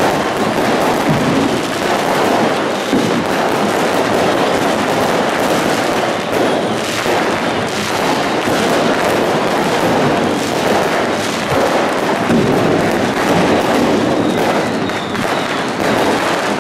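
Firecrackers going off in a stand of football supporters lighting flares: a continuous crackle of many sharp bangs over a steady, dense roar of crowd noise.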